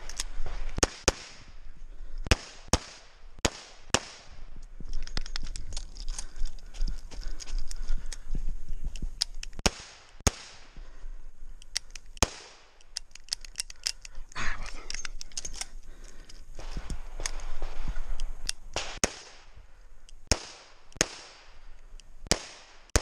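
Smith & Wesson 686 revolver fired in a stage run, mostly quick pairs of shots about half a second apart, with short pauses between groups.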